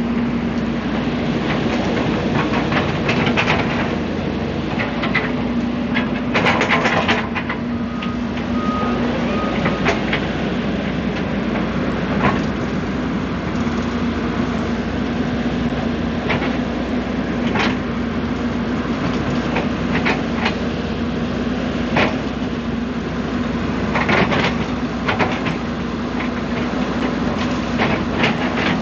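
Excavator's diesel engine running steadily under work, with sharp knocks and clanks every few seconds as the bucket digs soil and stones.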